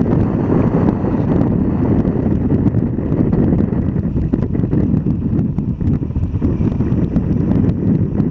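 Steady low wind rumble on the microphone of a motorbike's camera, with the motorbike's running and road noise mixed underneath.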